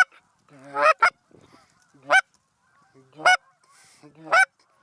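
Goose honking: five short calls, each rising in pitch, spaced about a second apart.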